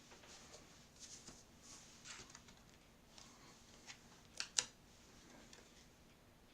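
Faint rustling and light taps of card stock and stamping tools being handled on a craft table, with two sharp clicks close together about four and a half seconds in.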